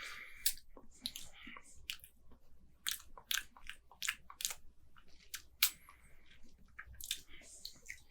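Faint, irregular wet mouth clicks and lip smacks, roughly two a second, from someone tasting beer.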